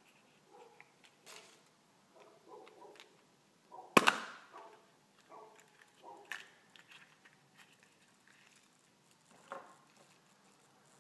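Yellow plastic Kinder Surprise capsule snapped open by hand with one sharp pop about four seconds in. Around it are small plastic clicks and handling rustles as the toy airplane parts and folded paper are taken out.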